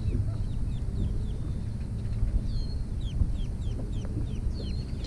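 Birds calling in the lakeside marsh grass, a run of short chirps that each fall in pitch, over a steady low rumble of wind on the microphone.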